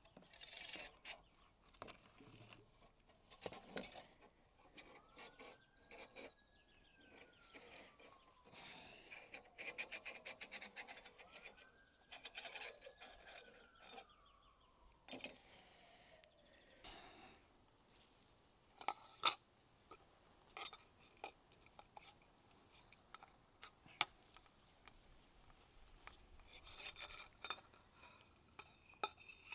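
Faint clinks, knocks and rubbing as the parts of a motorcycle's front fork are handled and wiped with a rag, with a few sharp clicks, the loudest about two-thirds of the way through. Twice a faint tone slowly rises and then falls.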